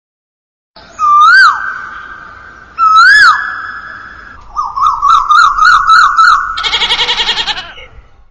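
Goats bleating: two short cries that rise and fall, about two seconds apart, then a longer wavering bleat and a fast, trembling bleat near the end.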